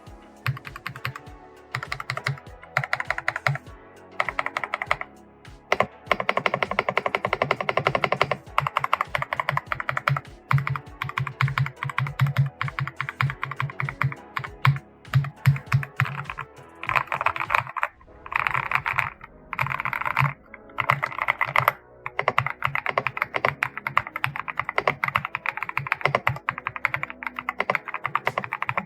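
Typing on an Attack Shark M86 75% gasket-mount mechanical keyboard with pre-lubed Strawberry switches: fast runs of key clicks in bursts, with a few brief pauses.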